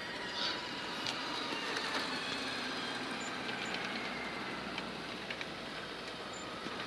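Tamiya 1/14 scale radio-controlled trucks driving across paving stones: a steady whine of small electric motors and gears over the noise of rolling tyres, with scattered light clicks.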